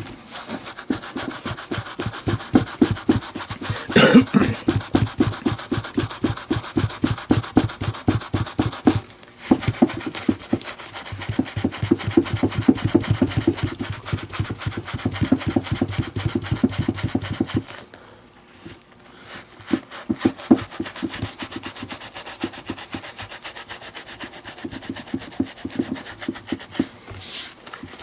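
Fast, short rubbing strokes over the leather of a Zett infielder's baseball glove, buffing it lightly in place of polishing. The strokes pause briefly twice, once a little after nine seconds and again around eighteen seconds, and there is one louder scrape about four seconds in.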